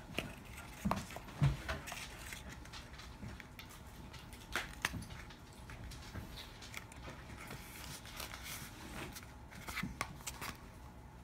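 Cardstock being handled and pressed together: scattered paper rustles and light taps, with a few soft knocks of the card box against a wooden tabletop, the clearest about a second in and again around four and a half seconds in.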